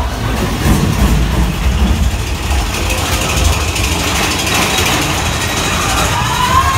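Theme park ride vehicle running in the dark: a heavy low rumble with rushing noise that builds through the middle, and a short rising tone near the end.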